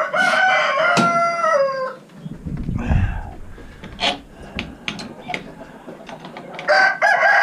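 A rooster crowing twice: one full crow about two seconds long at the start, ending in a falling tail, and another beginning near the end. In between come a low bump and a few sharp clicks.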